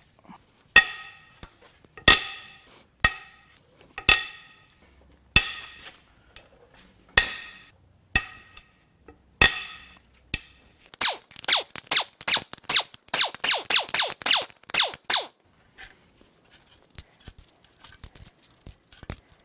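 Sharp, ringing metal strikes about once a second, as hand tools work the cylinder-head bolts of a Dodge 8.0L Magnum V10. After about eleven seconds they give way to a few seconds of rapid metallic clicking.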